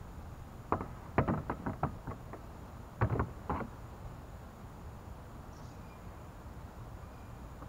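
A quick run of knocks and clatters, about ten in three seconds, from a small plastic fishing boat being handled and tipped to empty it.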